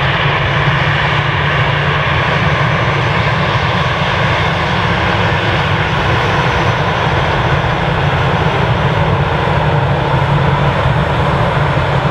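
Airbus A319 airliner's jet engines running steadily, with a faint whine over the engine noise.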